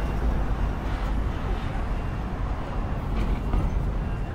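Steady low rumble of motor traffic passing along a street.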